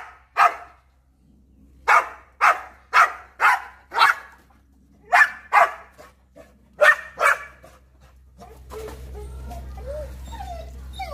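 Pitbull barking at a monkey on the roof: runs of loud barks about half a second apart, then rising and falling whines from about eight seconds in, with one more bark at the end.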